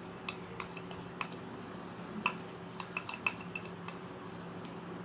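A spoon scraping and clinking against glass bowls as thick cream is scooped from a small bowl into a larger one: irregular light clicks with a few short ringing clinks, over a faint steady hum.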